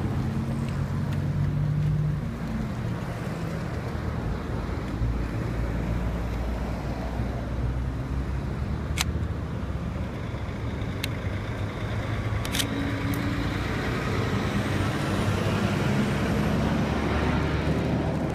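A heavy truck hauling a shinkansen car on a long trailer passes slowly with its escort traffic, diesel engines running low and steady. A few sharp clicks come near the middle.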